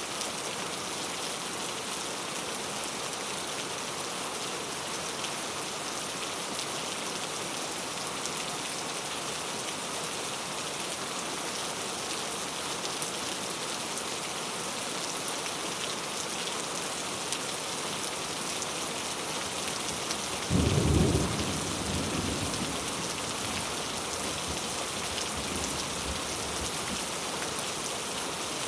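Steady rain falling. A single clap of thunder comes about two-thirds of the way through: a sudden low rumble, the loudest moment, which fades away over a couple of seconds.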